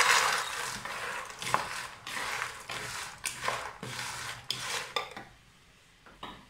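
Crisp fried dough pieces tipped from a bowl into bubbling sugar syrup in a non-stick pan, landing with a loud rush, then stirred with a wooden spatula: repeated scraping strokes against the pan, about one or two a second, dying away near the end.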